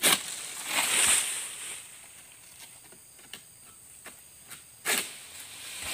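Long-pole palm harvesting sickle (egrek) working among oil palm fronds: a rasping, rustling swell about a second in, scattered small ticks, and sharp cracks at the start and about five seconds in.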